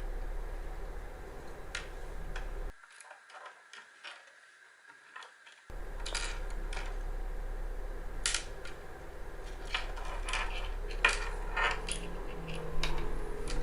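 Scattered small metallic clicks and clinks as the metal casing of a lighter's piezoelectric igniter is worked open by hand. Most of them come in the second half, and the sound drops to near silence for about three seconds starting about three seconds in.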